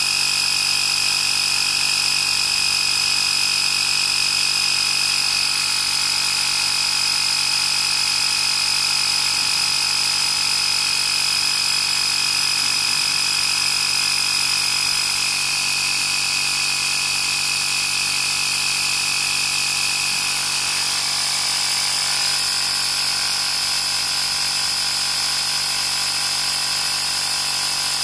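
Workzone Titanium 20 V cordless air compressor running steadily while pumping up a flat car tyre: a steady motor drone with a high whine. About three quarters of the way through, the whine shifts slightly higher in pitch.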